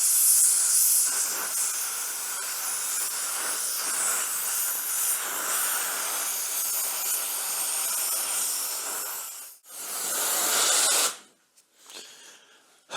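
Gas torch flame hissing steadily while preheating a cast iron piece for brazing. It drops out for a moment near 10 seconds in, comes back, then cuts off suddenly about 11 seconds in as the torch is shut off.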